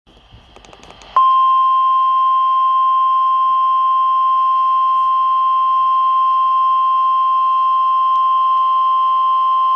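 NOAA Weather Radio 1050 Hz warning alarm tone: a single loud, steady high tone that switches on abruptly about a second in and holds unchanged. It signals that a weather warning is about to be broadcast.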